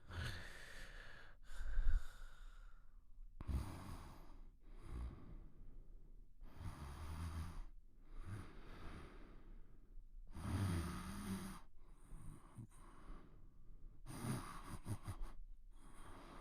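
Heavy, rough breathing and snoring of a sleeper, one breath every second or two. One louder breath comes about two seconds in.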